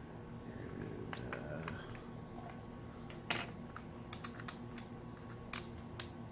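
Light clicks and taps of a small screwdriver and plastic laptop parts being handled during disassembly, scattered and irregular, the sharpest a little past halfway, over a low steady hum.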